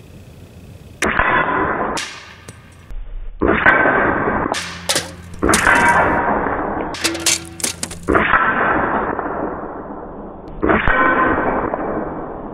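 Air-rifle pellets striking steel knockdown silhouette targets and aluminium soda cans, about five hits. Each is a sharp clang followed by metallic ringing that fades over a second or two, with a quick run of sharp cracks and clinks in the middle.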